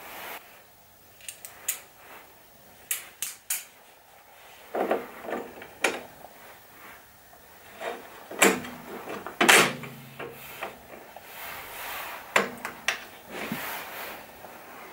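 A metal bolt and wing nut handled and fitted into the slot of a plywood circle-cutting jig on a bandsaw table: scattered clicks, light knocks and short scrapes of metal and wood. A few louder knocks come in the middle, one ringing briefly.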